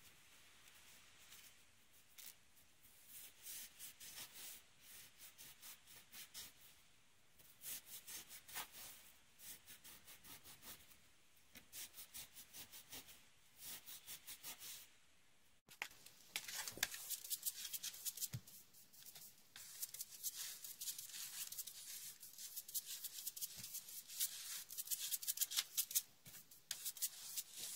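A cloth rubbing in quick repeated strokes on a painted window sill, scrubbing off sticky cushion-tape residue with sesquicarbonate solution. About halfway through, after a break, come louder, denser swishing strokes of a small hand brush sweeping a wooden floor.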